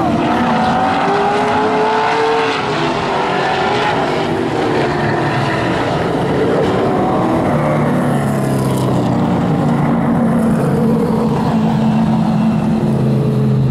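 Several vintage modified race car engines running on the track, their pitch rising and falling as they pass. From about halfway the sound settles into a steady, even drone of engines.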